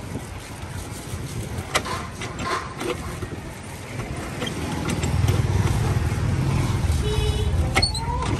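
Street traffic with motorbike engines running, a low rumble that grows louder about halfway through, with a few light knocks and clicks.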